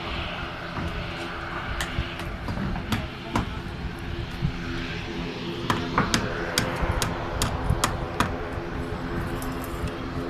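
Steady drone of an airliner's engines, with about a dozen sharp, irregular hammer knocks in the middle stretch.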